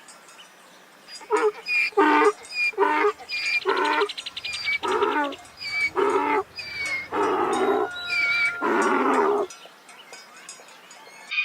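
An animal calling about ten times in a row, each call short and wavering, over some eight seconds.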